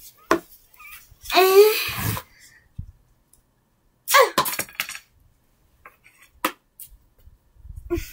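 A person's voice making two loud non-word vocal noises, about a second and a half in and again about four seconds in, each with a falling pitch, with a few light clicks in between.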